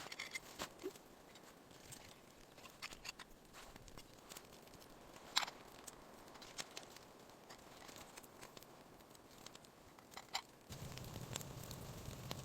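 Quiet, scattered clicks and small taps from handling things, with a sharper click about five seconds in and another about ten seconds in. Near the end, a low steady hum comes in suddenly.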